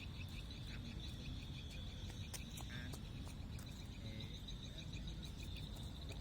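Steady chorus of small calling animals by the water, a high rapid pulsing trill of about eight pulses a second, over a low rumble, with a few sharp ticks about halfway through.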